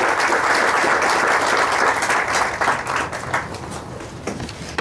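Audience applauding, dying away about three seconds in, leaving a few scattered claps.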